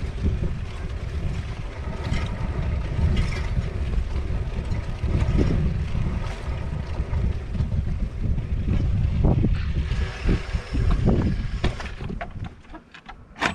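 Wind buffeting the microphone while on the move: a low, fluctuating rumble that eases off near the end.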